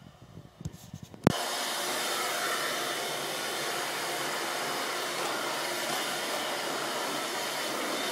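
A few light knocks, then a sharp click about a second in as a Dirt Devil vacuum cleaner is switched on; its motor then runs steadily.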